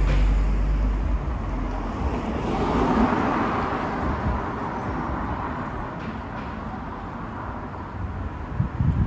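Urban road traffic: cars passing along the street, one swelling by about three seconds in.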